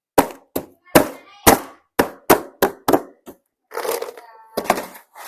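Scissors snipping through packaging, about eight sharp snips in quick succession, then a short rustle of the package and one more snip near the end.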